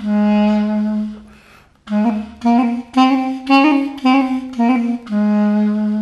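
Diatonic birbynė, a Lithuanian wooden reed pipe, playing a finger-dexterity exercise. A held low note fades out, then comes a quick run of short notes at about four a second, then another held low note near the end.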